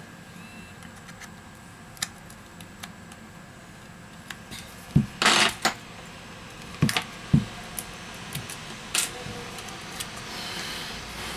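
Scattered sharp clicks and light clatter from handling a smartphone and ejecting its SIM tray with a metal ejector pin. The loudest cluster of clicks comes about five seconds in.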